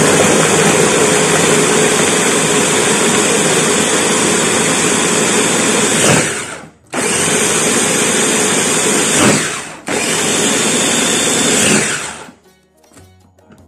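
Electric mini food chopper, a press-top motor on a glass bowl, running and blending chilies, pickled garlic, ginger and liquid seasonings into a sauce. It runs for about six seconds, stops briefly, then runs in two more pulses of about three seconds each before cutting off near the end.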